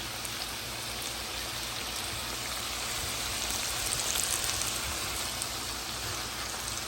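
Potato fries sizzling steadily in hot frying oil, swelling a little about four seconds in.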